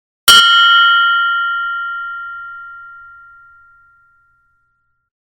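A mindfulness meditation bell struck once, ringing with a clear high tone and several overtones that fade away steadily over about four seconds.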